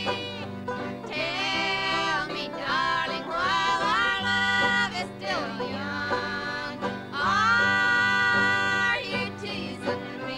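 Small country dance band with accordion playing a slow love song while a singer sings the verse, holding long notes over a steady accompaniment.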